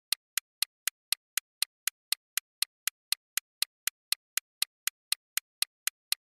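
Quiz countdown-timer sound effect: short, sharp clock-like ticks at an even pace of about four a second, all equally loud.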